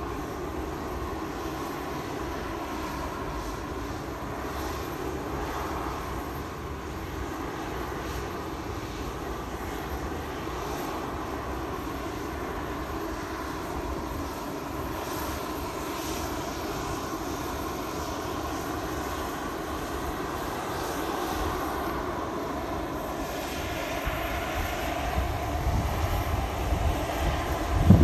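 Aircraft engines running on an airport apron: a steady, distant drone with a faint whine, growing louder in the last few seconds.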